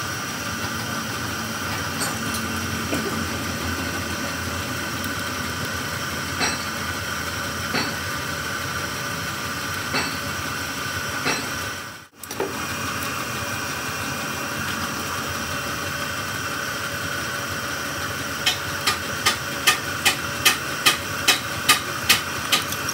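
A steady machine hum with hiss runs throughout, with a few isolated clicks, and drops out briefly about halfway. Near the end a quick, even run of hammer strikes on metal begins, about two or three blows a second.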